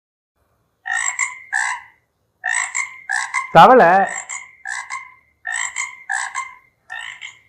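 Recorded frog croaking: a string of short croaks, mostly in quick pairs, repeating about once a second. A person says a single word over it about halfway through.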